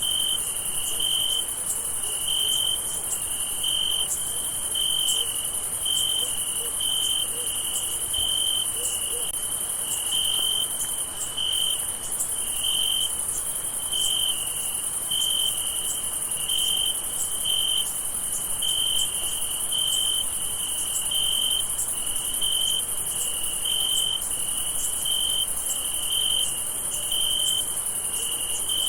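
Crickets chirping in a steady, even rhythm, about three chirps every two seconds, over a continuous high-pitched insect trill.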